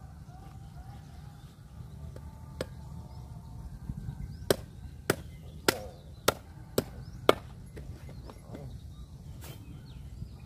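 Meat cleaver chopping through a large striped catfish on a round wooden chopping board. There is one sharp chop a couple of seconds in, then a run of six sharp chops about every half second, and a lighter one near the end.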